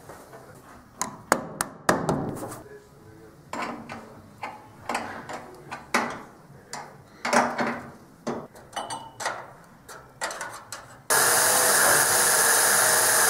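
Workshop handling sounds: tools and parts knocking, clicking and scraping against each other at an uneven pace. About eleven seconds in, a loud steady rushing noise starts suddenly.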